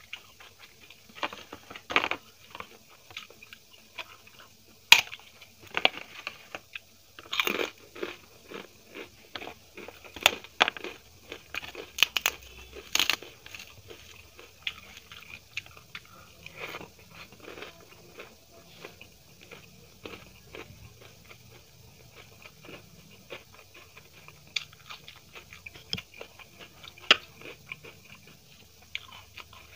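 A person chewing close to the microphone, with sharp crunches of crisp food. The crunches come in clusters, busiest in the first half, with single loud ones about five seconds in and near the end.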